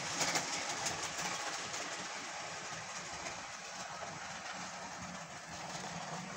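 Model railway locomotive running on its track, with a burst of clicking from wheels over the rail joints as it passes close at the start, then a steady running noise as it carries on round the layout.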